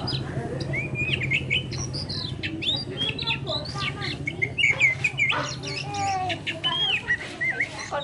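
Oriental magpie-robin singing: a varied run of clear whistles, slurred notes and quick chirps with short gaps, over a steady low hum.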